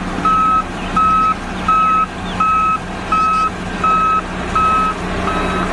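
Reversing alarm on an XCMG single-drum road roller, beeping evenly about once every 0.7 seconds over the steady running of its diesel engine: the roller is backing up.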